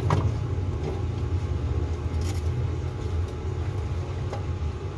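Steady low rumble of a motor vehicle running, with a few light clicks at the start, a little past two seconds and past four seconds.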